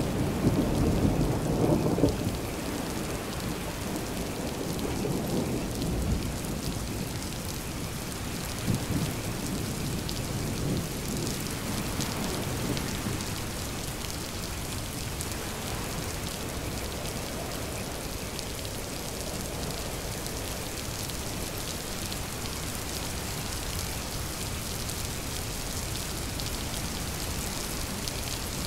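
Steady rain falling, with a roll of thunder rumbling loudly at the start and fading after about two seconds. Weaker low rumbles follow and die away by about halfway, leaving the even hiss of the rain.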